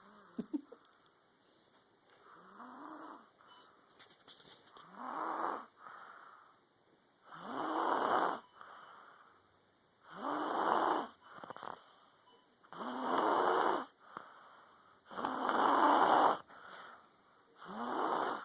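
A little girl snoring loudly in her sleep: seven rasping snores on the in-breath, one about every two and a half seconds, the first faint and the rest much louder.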